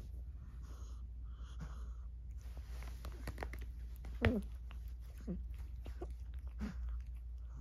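A cat making short vocal sounds that each fall in pitch, the loudest about four seconds in and two fainter ones over the next few seconds, while it twitches in convulsions after an epileptic seizure. Soft clicks and rustling of the blanket come before the loudest sound.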